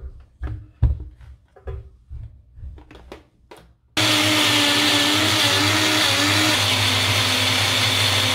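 Knocks and clicks of the plastic blender cup being handled and fitted onto a personal blender's motor base. About four seconds in, the motor starts suddenly and runs steadily with a wavering whine, blending chopped green herbs into a green sauce.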